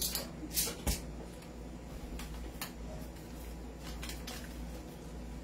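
Scattered light clicks and taps, about seven over five seconds, as an airsoft gas magazine is handled and loaded with 0.20 g BBs.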